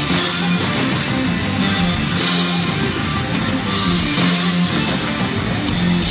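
Live rock band playing an instrumental passage on electric guitar and bass guitar, a riff with held low notes returning about once a second.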